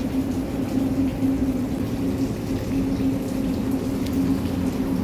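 Running water from a water feature, a steady rushing noise with a constant low hum beneath it.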